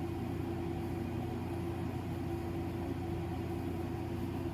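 Electric fan running steadily: a constant hum with one clear steady tone over a low drone.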